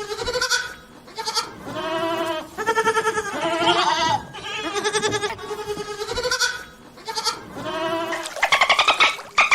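Farm animals bleating: a string of separate wavering calls one after another, and a faster pulsing call near the end.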